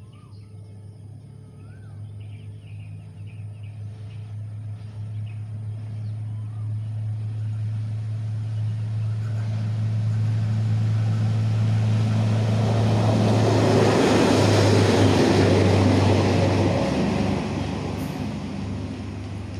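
A heavy vehicle passing by: a low, steady engine hum with a rush of noise that builds over several seconds, is loudest about three-quarters of the way in, then fades.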